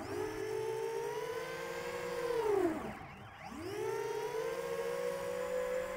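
FPV quadcopter's brushless motors (iFlight XING 2814, 1100KV) spinning 10-inch three-blade props in flight: a whirring whine that climbs in pitch as the throttle is punched and holds. It drops away about two and a half seconds in, climbs again about a second later, holds, and falls off at the end.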